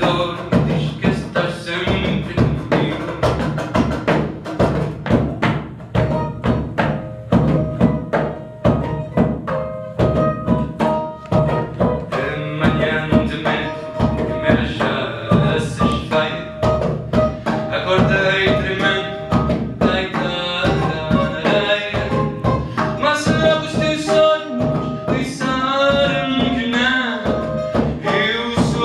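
Live acoustic music: a percussive vocal beat into a handheld microphone over double bass and bouzouki, with a sung and plucked melody coming forward about twelve seconds in.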